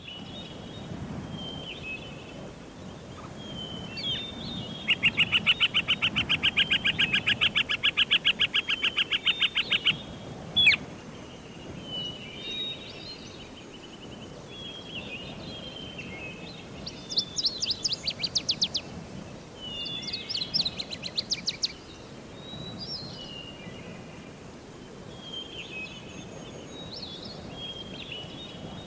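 Wild birds calling in a forest: short, high chirps repeat throughout over a faint background hiss. A loud, rapid rattling trill runs from about five seconds in to about ten seconds, followed by one sharp click. Two more rapid pulsed bursts come a little past the middle.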